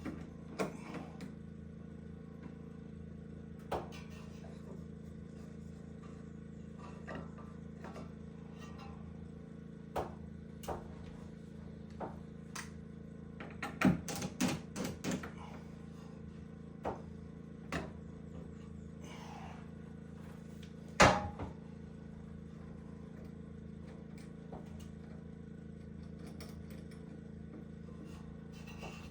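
Scattered knocks, clicks and taps of hand work on the cabin's wiring and woodwork, over a steady low hum. A quick run of knocks comes about halfway through, and one loud knock follows a few seconds later.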